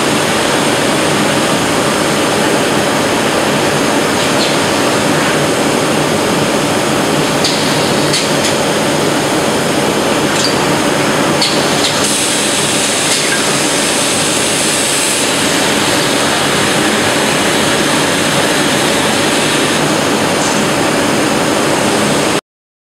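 Steady machinery noise of a glass-bending production line, with a couple of steady hums running through it. A few faint clicks sound in the first half, and a higher hiss rises from about twelve to fifteen seconds in.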